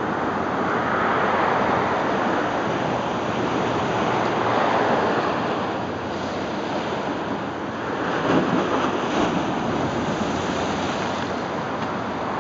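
Ocean surf breaking and washing up the shore, a steady rush that swells and eases every three to four seconds, with the strongest surge about two-thirds of the way through.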